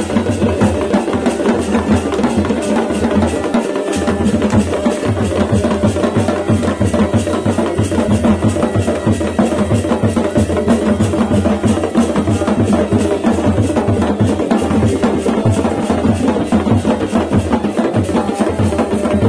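Chholiya band music: dhol and damau drums beating a fast, steady rhythm with clashing brass cymbals, over the held tones of a masakbeen bagpipe.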